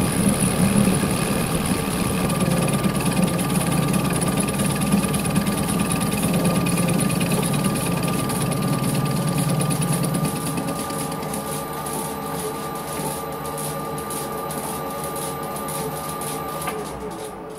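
Mini lathe running with a milling attachment, milling a T-nut: a steady machine whine with rough cutting noise beneath it. The heavy cutting noise eases about two-thirds of the way through, and near the end the machine is switched off and winds down.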